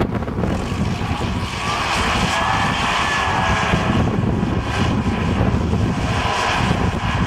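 An engine droning over a steady rumble, with a whining tone swelling up through it about two seconds in and fading a couple of seconds later.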